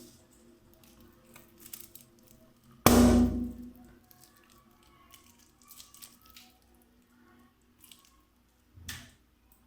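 A balloon bursting with one loud, sharp pop about three seconds in, then a quieter sharp snap near the end, with faint crinkling clicks in between.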